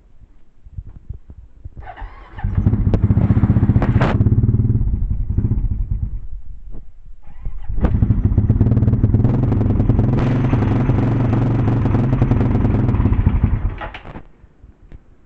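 2006 Husqvarna SM610's single-cylinder four-stroke engine starts about two seconds in, runs briefly and dies away, then starts again and runs until it cuts off near the end. It is running with the choke on, and these are the bad noises heard just before the engine failed.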